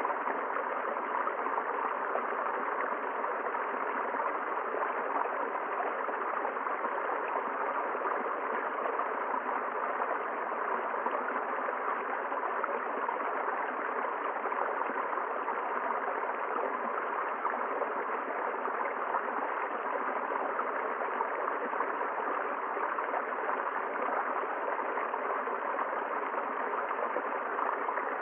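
River water flowing steadily, a constant even rush with no change.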